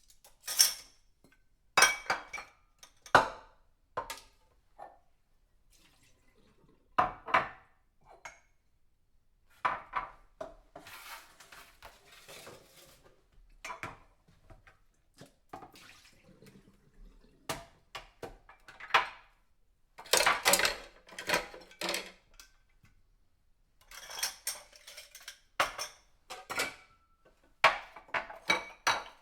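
Washing dishes by hand: plates, cups and cutlery clinking and clattering against each other at an uneven pace, with short pauses between, and brief stretches of rinsing water.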